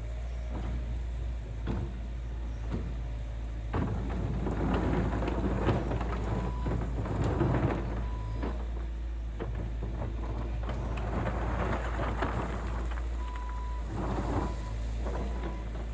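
Skid steer's diesel engine running steadily while riprap stone clatters and grinds against the bucket and the ground, in two loud rough spells. A back-up alarm beeps briefly, then again near the end.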